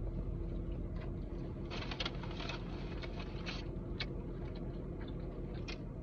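Eating sounds inside a car: scattered small clicks and a burst of rustling food packaging about two seconds in, over a steady low hum.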